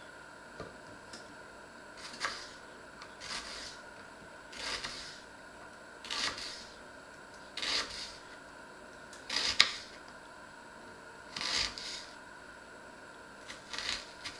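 Kitchen knife slicing an onion on a wooden cutting board: unhurried single cuts, one every second or two, each a short crisp stroke ending in a knock of the blade on the board. The sharpest knock is about two-thirds of the way through.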